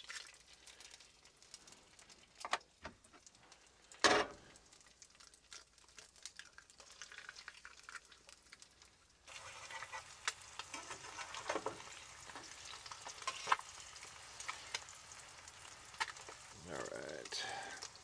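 Eggs frying and sizzling in a pan, with a few sharp knocks of cookware in the first half. The sizzling jumps louder about nine seconds in and carries on crackling steadily.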